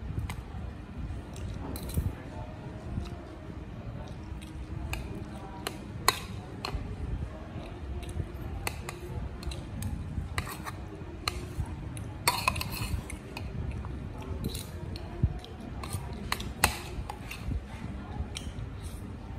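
Metal spoon clinking and scraping against a ceramic plate and bowl at irregular moments, a dozen or so sharp clinks, over a steady low background rumble.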